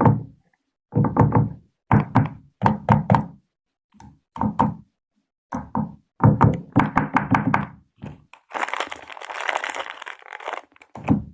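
Quick bursts of tapping and knocking on a Sprite candy can, several taps in each burst with short pauses between. About eight and a half seconds in, the tapping gives way to a couple of seconds of crinkly rustling.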